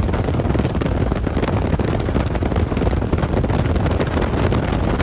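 Helicopter in flight: steady, loud rotor and engine noise with a deep rumble, mixed with wind buffeting on the microphone.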